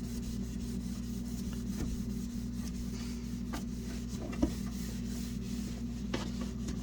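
Norwex microfiber cloth scrubbing dirty plastic fridge parts, a scraping sound from the microfibers stripping off grime, with a few light knocks. A steady low hum runs underneath.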